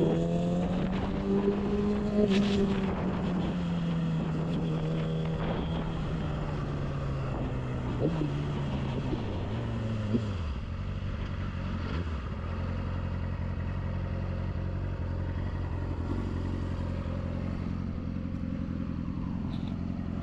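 Yamaha YZF-R6's inline-four engine off the throttle, its revs falling away over about ten seconds. It then settles into a steady idle for the rest of the time.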